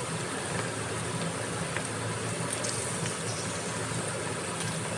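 Steady background hiss over a low hum, with a few faint light clicks from a fork against the plate.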